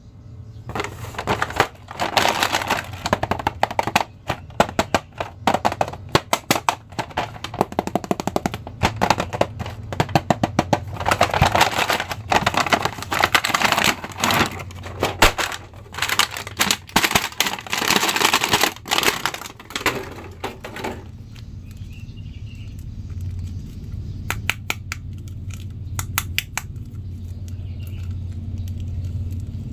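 Plastic toy packaging crackling and crinkling as an action figure is unboxed and pulled out of its plastic tray, a dense run of cracks and clicks. About two-thirds of the way through the crackling stops, leaving only a few faint clicks over a low steady hum.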